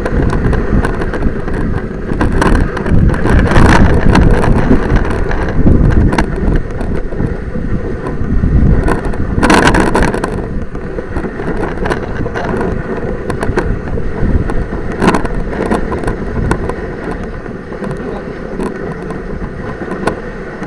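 A dog sled running over a packed snow trail, heard from a camera on the sled: a steady scraping noise from the runners, with knocks and rattles as the sled bumps along. The biggest jolt comes a little under ten seconds in.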